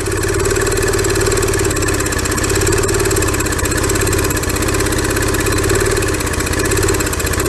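Briggs & Stratton small engine on a pressure washer running steadily, still burning through a mix of old gasoline left in the tank.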